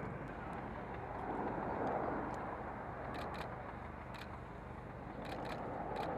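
Aircraft engine noise from an arriving plane, with camera shutters clicking several times from about halfway through.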